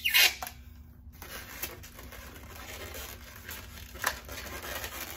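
Latex modelling balloons handled and twisted in the hands. A brief squeak comes at the start, then soft rubbing and crinkling of the rubber, with one sharp click about four seconds in.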